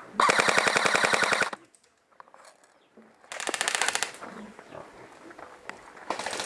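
Airsoft rifle firing on full auto in rapid bursts of clicks. A loud burst of about a second and a half comes at the start, a shorter one comes in the middle, and another begins near the end.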